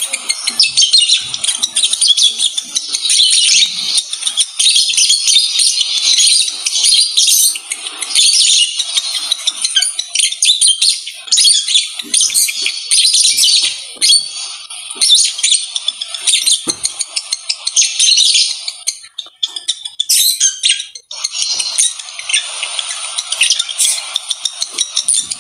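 Lovebirds chattering in a rapid, continuous high-pitched twitter while mating, one bird mounted on the other. The chatter thins briefly about three quarters of the way through.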